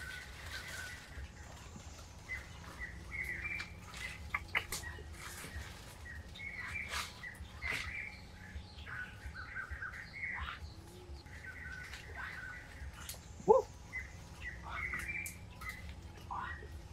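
Small birds chirping, with short high chirps scattered throughout and one louder, sharper call about three-quarters of the way through, over a faint low rumble.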